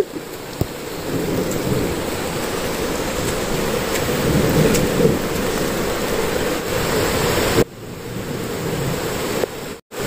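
Cascading stream and waterfall water rushing steadily, breaking off suddenly about three-quarters of the way through and again briefly near the end.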